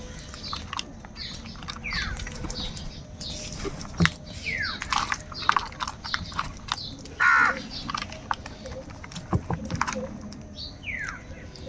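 Crows cawing: a series of separate harsh calls that drop in pitch, the loudest about seven seconds in, with sharp clicks in between.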